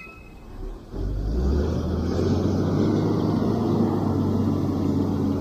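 A steady, low engine rumble comes in suddenly about a second in and holds.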